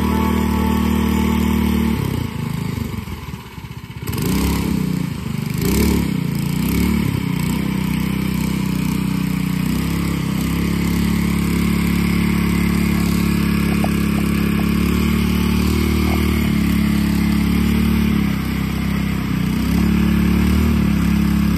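A 301cc Predator single-cylinder go-kart engine, driving through a torque converter, runs hard as the kart's tires churn through pond water. About four seconds in the revs rise and fall twice, then hold steady and high, easing off briefly about eighteen seconds in before picking up again.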